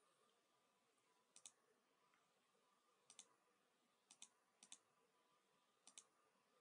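Near silence with a few faint computer mouse clicks, two of them in quick pairs.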